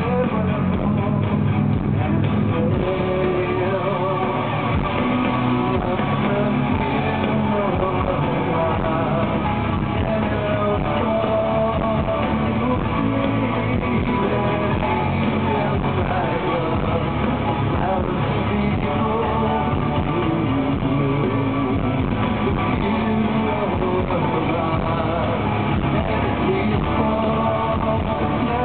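A live rock band heard through a large concert PA from the crowd: electric guitars, an acoustic guitar, bass, drums and keyboards playing on steadily.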